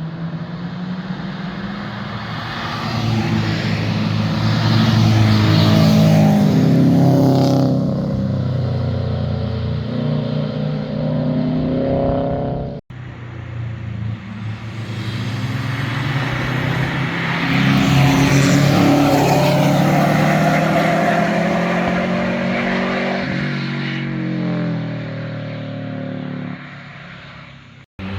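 Two separate cars passing at speed, each one's engine and exhaust growing louder as it approaches, peaking as it goes by, then fading, with the engine pitch rising and falling. A hard cut about halfway jumps from the first car to the second.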